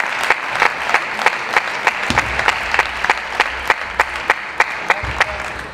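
Audience applauding, with sharp claps standing out at an even beat of about three a second.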